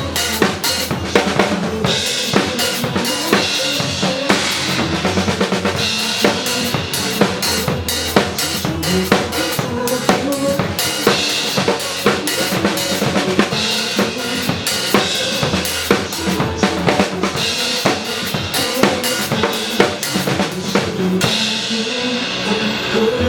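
Drum kit played to a recorded pop backing track, with a steady beat of kick, snare and cymbal hits over the song. The cymbals and hits thin out near the end.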